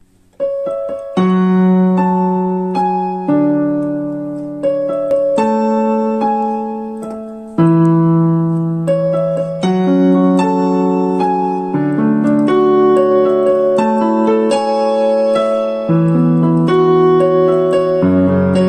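Background piano music: a slow, gentle melody of chords, each struck and left to fade.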